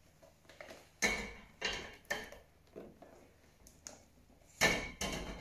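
Pampered Chef Ofenmeister stoneware baking dish being tipped and shaken, giving a handful of short knocks and clunks, the loudest near the end. The loaf has risen so much that it is stuck inside and will not slide out.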